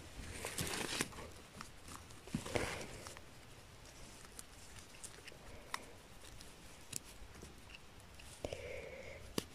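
Rustling and crackling of moss and forest litter as chanterelle mushrooms are pulled up by gloved hands, loudest in the first three seconds, followed by scattered small clicks as a knife trims the mushroom stems.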